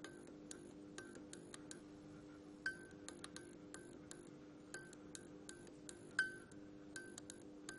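Broken fluorescent lamp humming steadily, with irregular sharp clicks and ticks about every half second. Two louder snaps, one about a third of the way in and one near the end.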